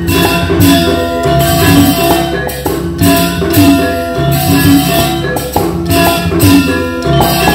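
Balinese gamelan playing dance music: bronze metallophones ring a repeating melodic figure over drumming, with recurring cymbal clashes.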